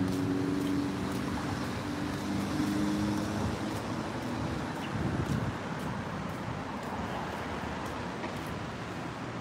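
Steady road traffic noise, with a low engine hum over the first few seconds that fades out.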